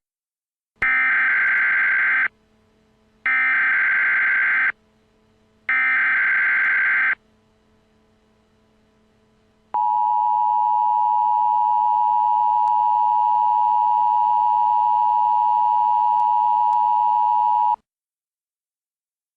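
Emergency Alert System header and attention signal: three short bursts of SAME data tones, about a second and a half each, then the EAS two-tone attention beep held steady for about eight seconds before cutting off. Together they mark the start of a new emergency alert broadcast.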